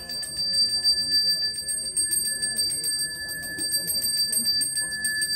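A Balinese priest's hand bell (genta) rung rapidly and continuously: a steady, bright ringing tone with quick, even strokes several times a second.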